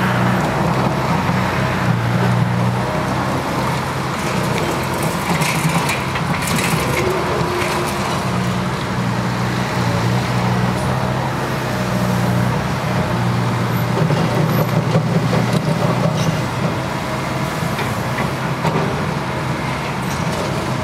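Liebherr 906 excavator's diesel engine running, its note growing louder and easing off several times as it works. A few sharp, hissing or clattering noises come about five to seven seconds in.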